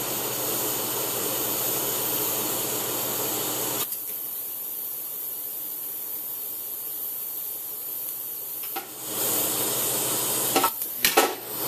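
TIG welding arc hissing steadily while tacking stainless, run DC electrode negative at about 120 amps. The arc stops about four seconds in, leaving a quieter hiss, and strikes again about nine seconds in; a few sharp clicks come near the end.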